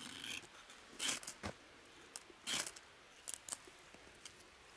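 Ferro rod struck with a steel striker, several short rasping scrapes about a second apart, throwing sparks onto fatwood shavings until they catch.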